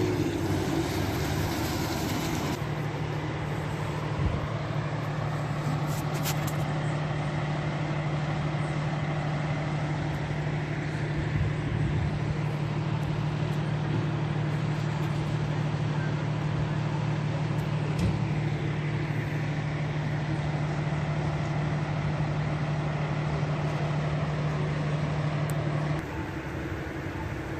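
Vehicle engines running at a city intersection, a steady low hum over traffic noise, which stops abruptly near the end.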